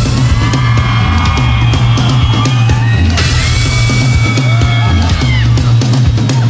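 Loud dance-pop music with a heavy bass beat and drums, and high sliding synth or vocal-chop lines over it; no lyrics are sung.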